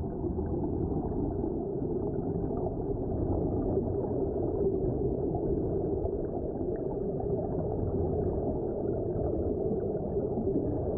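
Muffled underwater rush and gurgle of air bubbles streaming out of Sea Trek helmet-diving helmets fed by surface air hoses, as heard by a submerged microphone. Steady throughout, with no high sounds.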